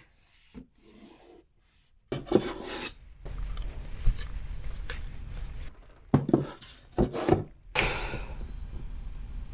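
Objects being rubbed, scraped and shuffled around, with a few sharp knocks, starting about two seconds in: things being handled and moved during organizing.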